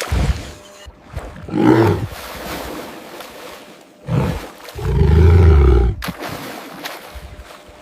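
A large wild animal roaring twice, deep and loud: a shorter roar about a second and a half in, then a longer one about four seconds in lasting some two seconds.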